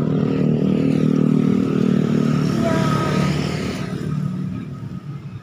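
A small motorcycle engine running steadily as it passes. It is loudest through the first three seconds or so, then fades away over the last two.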